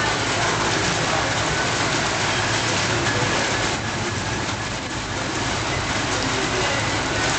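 Heavy thunderstorm rain pouring down in a steady, dense hiss, easing a little about four seconds in.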